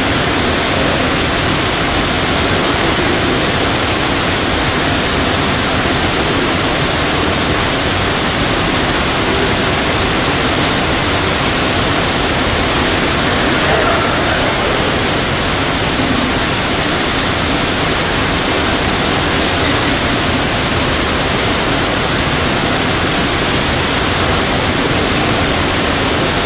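Steady, loud rushing hiss that runs even and unbroken, with no clicks, tones or rhythm.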